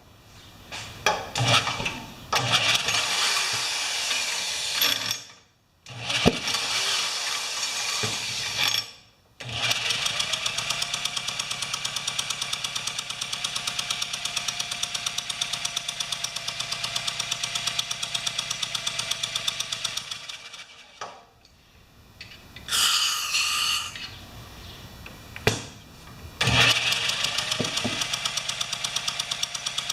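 Hyundai 3500-watt generator's 6.5 hp engine running in rough, hard-beating spurts. It dies out and catches again several times, with a short hiss before it picks up once more near the end. The intake valve is not closing, and it is later found bent.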